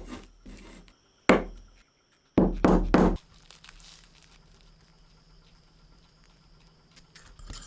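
A single sharp knock about a second in, then a quick cluster of knocks and rattling around two and a half to three seconds in, followed by a faint steady hum.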